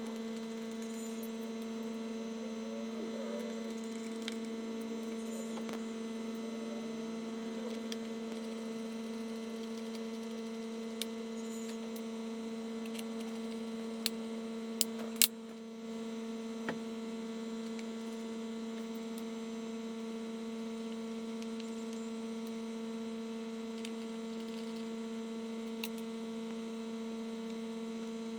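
Steady electrical hum with a clear low pitch and an overtone an octave above it. A few short sharp clicks break in, the loudest three close together about halfway through.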